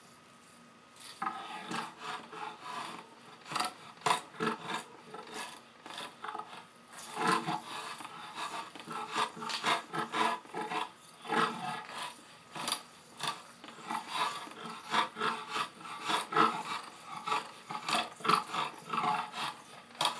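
Drawknife shaving the bamboo backing of a laminated hickory-and-bamboo bow stave: a quick, uneven run of short scraping strokes, starting about a second in. The bamboo is being cut down level with the hickory beneath it.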